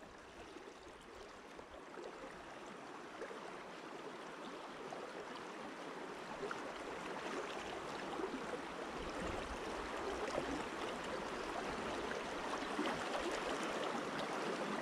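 Fast-flowing river water rushing steadily, growing gradually louder.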